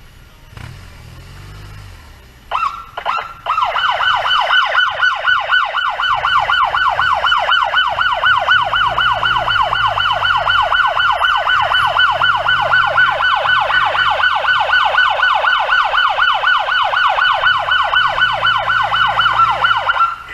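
Ambulance siren in a fast yelp, a rapid rise-and-fall wail repeating about four to five times a second. It gives a short burst about two and a half seconds in, then sounds loud and steady until it cuts off near the end, over a low rumble of traffic.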